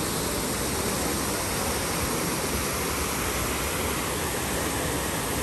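Steady rushing of water pouring over the rock cascades of the Trevi Fountain: an even, unbroken hiss with no distinct splashes.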